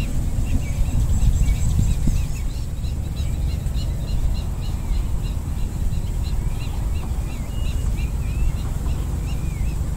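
Wind buffeting the microphone in a steady low rumble, with small birds chirping repeatedly in short, high calls throughout.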